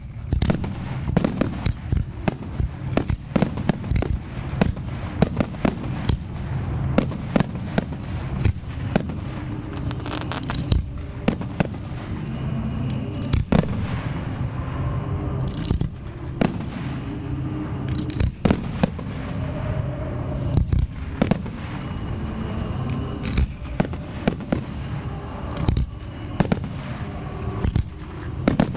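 Aerial fireworks shells bursting in a rapid, irregular barrage of sharp bangs over a steady low rumble, the bangs thickest in the first half.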